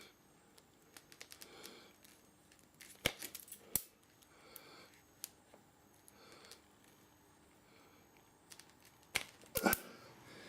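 Wire-stripping tool clicking and snipping as insulation is stripped off the thin wires of a motorcycle turn-signal lead: scattered small clicks, with louder sharp snaps about three seconds in and again near the end.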